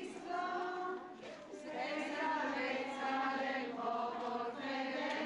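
A group of voices singing a devotional hymn together in long held notes, with a short break about a second in.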